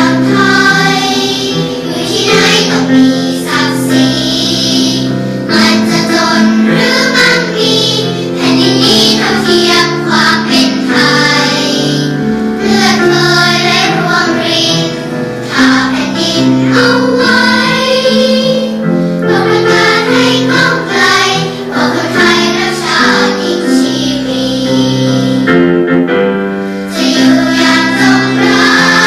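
Girls' children's choir singing a Thai patriotic song together, with long held notes.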